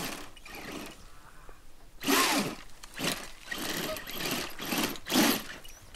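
A Formula Offroad buggy's engine revving hard in repeated bursts, about one a second, starting about two seconds in after a quieter stretch.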